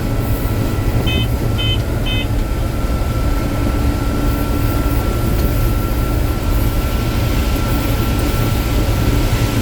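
Combine harvester running steadily under load while picking corn, heard from inside the cab: a constant low rumble with a thin steady whine. Three short electronic beeps come about a second in, half a second apart.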